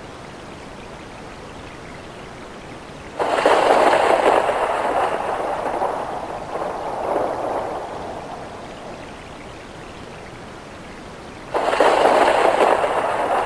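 Steady rain with two rolls of thunder: each starts suddenly, one about 3 s in and one near the end, and is louder than the rain; the first dies away slowly over several seconds, swelling once more as it fades.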